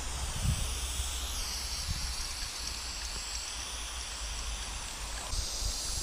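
Aerosol spray paint can hissing in long strokes as a graffiti piece is painted, starting about a second and a half in, with a short break near the end. A low steady rumble runs underneath.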